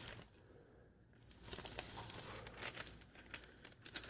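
Paper pages and cards of a handmade junk journal rustling and crinkling as they are turned and handled. About a second of near quiet, then light scattered rustles and small clicks.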